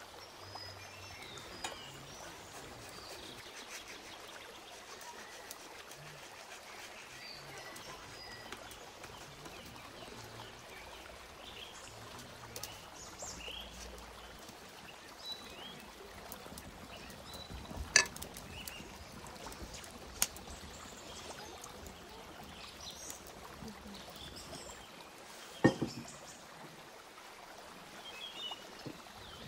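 Steady rushing of a stream running, with a few sharp knocks or clicks; the two loudest come a little past halfway and near the end.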